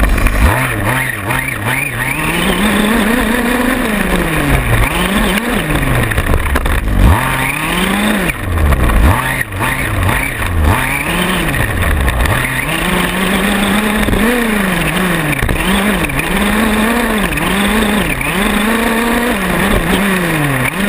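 Small gas two-stroke engine of a 1/5-scale RC buggy, heard from on board as it races. The revs rise and fall again and again as the throttle is worked, with a few knocks along the way.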